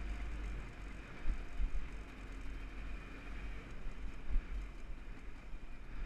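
Jawa 638 motorcycle's two-stroke twin engine running on the move, under heavy wind rumble on the microphone, with a few low thumps around one and a half seconds in and again past four seconds.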